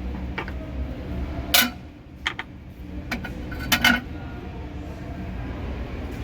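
Metal fuel injectors clinking and knocking as they are handled and set into an ultrasonic cleaner: a handful of sharp clinks, the loudest about one and a half seconds in, over a low steady hum.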